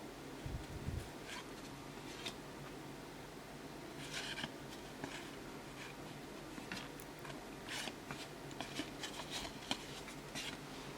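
Faint clicks and swishes of cardboard trading cards being handled and flipped through one at a time, with a soft low thump about half a second in.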